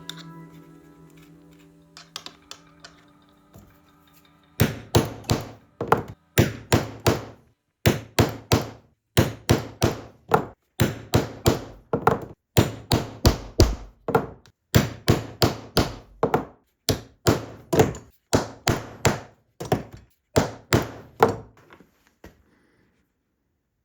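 A long run of sharp hammer blows on a workpiece, struck at about two to three a second. They start a few seconds in and stop a couple of seconds before the end.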